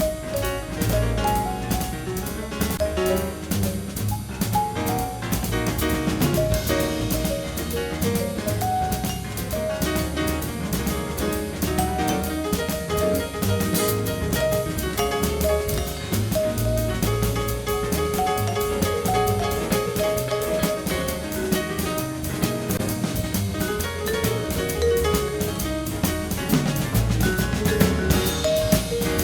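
Background music: a jazz-style instrumental with drum kit and a steady beat.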